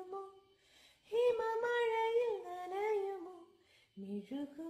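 A solo high voice singing a slow melody in long held notes, with short silent pauses between phrases and no accompaniment.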